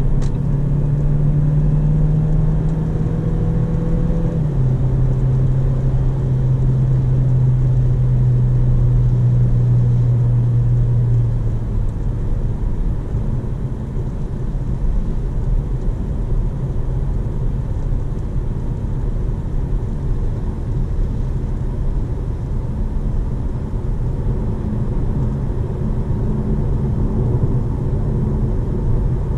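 Heard from inside the cabin, a Jeep Compass's 1.5 turbo four-cylinder mild-hybrid engine pulls under acceleration. Its pitch steps down about four seconds in as the 7-speed dual-clutch gearbox shifts up. The engine note fades out near the middle as the throttle eases off, leaving steady tyre and wind noise at motorway speed.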